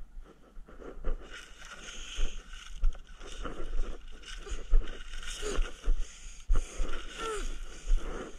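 A knife cutting through corrugated cardboard: an uneven run of rough, rasping strokes, with two short squeaks, one about halfway through and one near the end.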